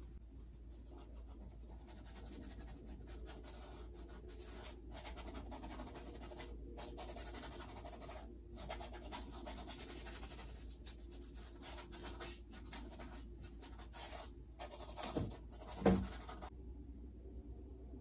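A paintbrush scratching and dabbing acrylic paint onto a canvas in short, stop-start strokes. A couple of soft bumps come about two-thirds of the way through.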